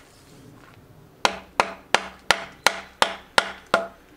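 Sharp hammer knocks on the top end of a wooden shovel handle, seating the handle into a steel shovel's socket. After a pause of about a second they come evenly, about three a second, eight in all, each with a short ring.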